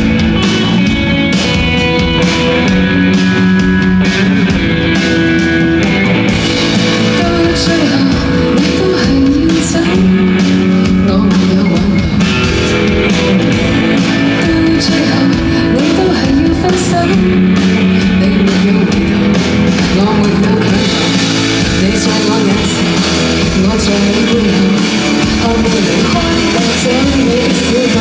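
A band playing live: guitar-led pop-rock with a voice singing.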